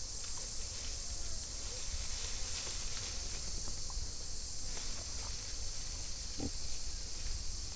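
Steady high-pitched drone of summer insects over a low rumble, with a short soft pig grunt about six and a half seconds in from a sow gathering nesting material.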